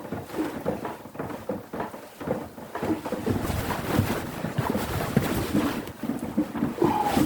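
Rainwater leaking through the roof, dripping and splashing irregularly into buckets, the splashing denser from about three seconds in to about six.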